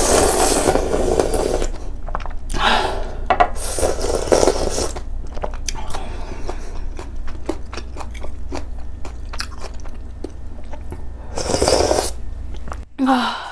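Person slurping spicy ramen noodles with soft tofu in several long slurps, with wet chewing and small clicks of the mouth between them; near the end a shorter slurp as broth is drunk from the pot lid.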